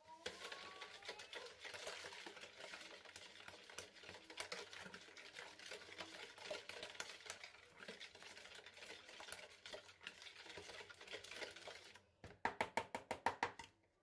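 Hand wire whisk beating a liquid egg, sugar and oil mixture in a plastic bowl, with fast, continuous scratchy strokes. Near the end come about eight sharper, louder clicks in quick succession.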